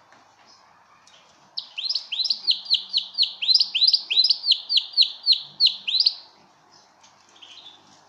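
Male domestic canary singing a quick trill of repeated downward-sliding whistled notes, about four a second, starting about a second and a half in and stopping a couple of seconds before the end, followed by a soft short chirp.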